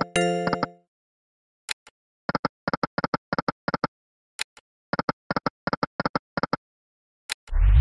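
Electronic sound effects of the EGT '100 Burning Hot' online slot game. A short multi-note chime dies away at the start, and a single click comes about two seconds in and again a little past halfway. Between and after the clicks come runs of quick, evenly spaced beeps, and near the end there is a loud sound rising in pitch.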